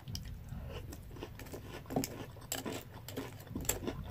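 Crunchy French toast cereal being chewed with the mouth closed: a quiet run of short, crisp crunches and clicks, thickest in the second half.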